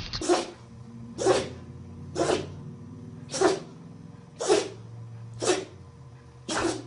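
A dog sneezing over and over, seven short sneezes at an even pace of about one a second.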